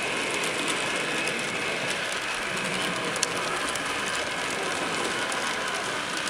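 Rivarossi model Southern Pacific cab-forward steam locomotive running along the track: a steady whir of its motor and gears with fine rapid clicking from the wheels and mechanism, and one sharper click about three seconds in.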